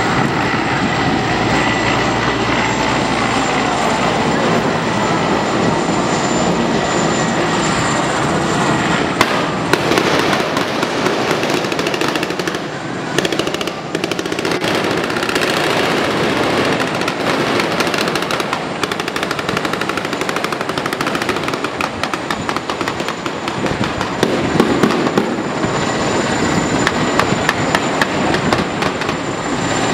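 A military helicopter's rotor and engine running for the first several seconds, then dense rapid cracks of automatic gunfire in bursts over the steady noise of fast outboard-powered inflatable assault boats.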